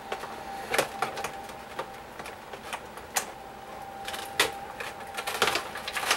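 Plastic strips of toy packaging being cut: irregular sharp snips and clicks, a few loud ones among lighter ticks.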